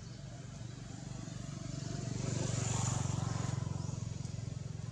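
A motor vehicle passing by, its engine hum and road noise growing louder to a peak about three seconds in and then fading.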